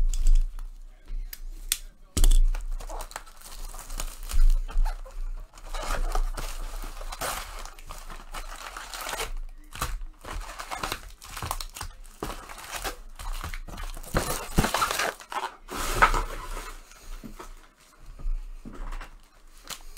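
Baseball card packaging being torn open and crinkled: irregular tearing and rustling of wrappers with short pauses between.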